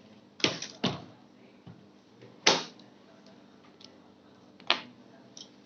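Several sharp clicks and knocks of hard computer parts being handled, the loudest about two and a half seconds in.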